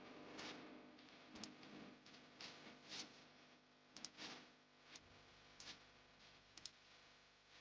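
Near silence with faint, sharp clicks at uneven spacing, roughly one a second and some in quick pairs.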